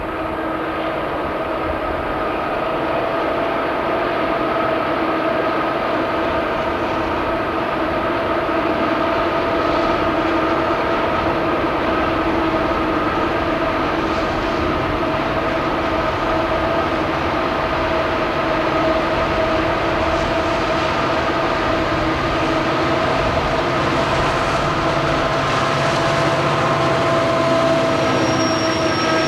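Several Conrail diesel-electric locomotives working hard at the head of a freight train as it approaches and passes, putting up exhaust smoke. A steady engine drone with a whine over it, growing slowly louder. A thin high-pitched tone comes in near the end.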